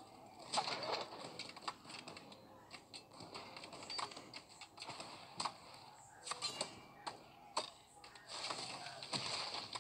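Irregular faint clicks and knocks, a few a second at uneven spacing, over a low hiss.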